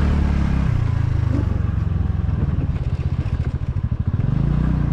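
TVS Ntorq 125 scooter's single-cylinder engine running at low speed while riding slowly over a dirt lot: a steady low drone that turns into a rapid, uneven pulsing about a second in.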